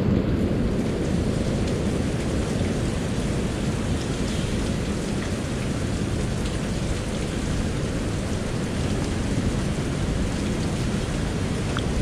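Strong wind buffeting the microphone as a steady low rumble, with the hiss of rain underneath.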